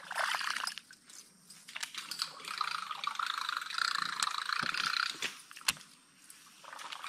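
Water sloshing and trickling, with scattered light clicks and one sharp click late on.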